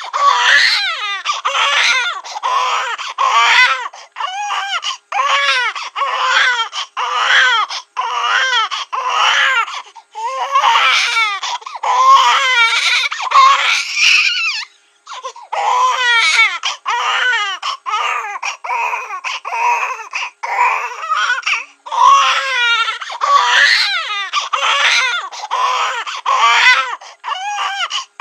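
Cartoon baby-crying sound effect: a high-pitched wailing cry in short sobs, about two a second, each falling in pitch, with a brief pause about halfway through.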